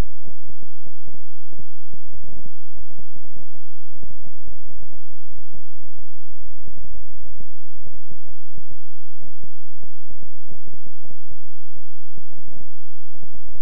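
Loud synthesized healing-frequency track: a steady low hum overlaid with irregular, rapid low throbbing pulses, several a second.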